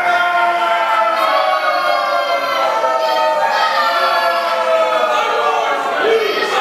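A group of voices singing together in long held notes, choir-like, with no beat or instruments beneath.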